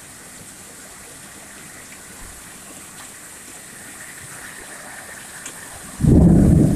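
Steady rain falling on a tin roof, then about six seconds in a sudden loud, low rumble of thunder.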